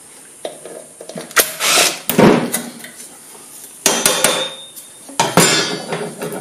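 Metal clatter and knocks in a few separate bursts: a steel bench-grinder wheel-guard cover, its screws and a cordless impact driver being handled and set down on a metal workbench.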